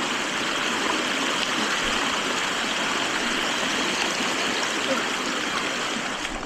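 Steady rush of flowing creek water, easing a little near the end.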